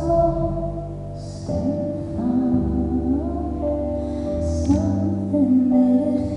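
A woman singing a slow song over instrumental accompaniment, with sustained low notes beneath the voice.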